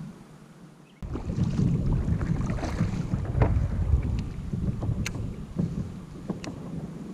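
Wind rumbling on the microphone, with scattered light knocks and clicks from the kayak and fishing gear. A quieter first second ends abruptly about a second in.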